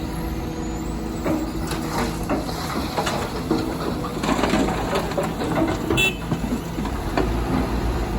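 Heavy-equipment diesel engine running steadily under dense crunching and clattering of rock and stone, the sound of an excavator bucket digging and scraping through quarry material. A short high chirp or squeak comes about six seconds in.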